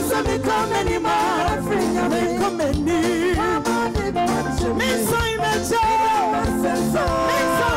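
Live gospel music: a woman singing lead over a band of keyboard, electric bass guitar and drum kit.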